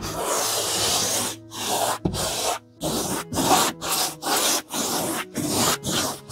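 Brush strokes spreading wallpaper glue across a painted wall: a long scratchy stroke, then a quick run of shorter strokes, about two a second.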